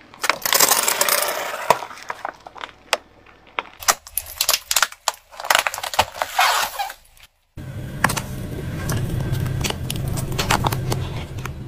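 Car tyre crushing objects one after another: a plastic soda bottle bursting with a hiss of spraying liquid, then a run of sharp plastic cracks and pops. After a brief cutout about seven seconds in, the car's engine runs low and steady under crackling as a plastic toy is crushed.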